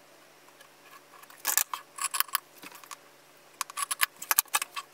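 Sewing scissors snipping through layered fabric to cut a square out of a bag panel's corner, in two runs of quick, sharp snips: the first about a second and a half in, the second near the end.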